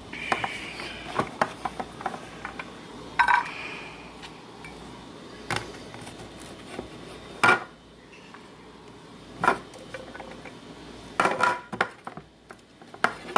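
Kitchenware clattering: irregular knocks and clinks of a container and utensil being handled as leftover chopped celery is scraped out of a food chopper into a storage container, with a few louder knocks spread through.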